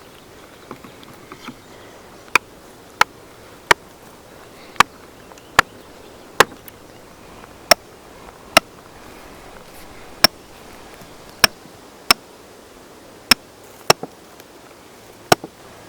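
Repeated heavy strikes on a splitting tool driven into cedar, about fourteen blows at roughly one a second with uneven spacing, each with a short ringing tone.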